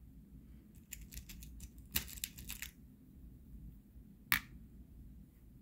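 Small lead airgun pellets clicking and clinking in their metal tin as fingers pick through them, a quick run of small clicks starting about a second in. Then one sharp click near the middle as a pellet is set down on the metal pan of a digital pocket scale.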